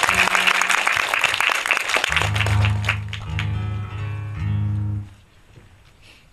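Audience applause dying away, then an acoustic guitar plucked: a handful of low notes ringing one after another, stopping about five seconds in.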